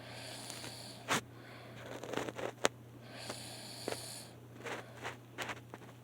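A man snoring in his sleep, breaths coming about every three seconds, with short sharp snorts and clicks between them, the loudest about a second in.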